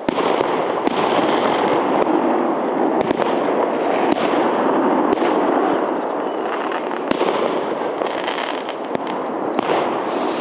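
Many fireworks going off at once: a dense, continuous crackle and hiss with sharp bangs scattered through it.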